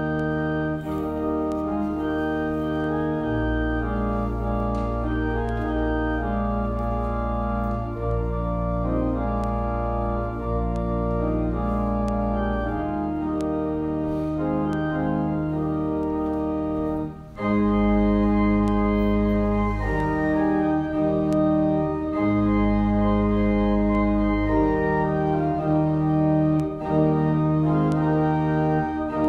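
Organ playing slow sustained chords over a deep pedal bass. It breaks off briefly about seventeen seconds in and resumes a little louder.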